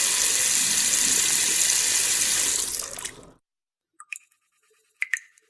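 Water running from a tap into a sink with a steady hiss, fading out about three seconds in. Then a leaking faucet drips: a few single drops about a second apart.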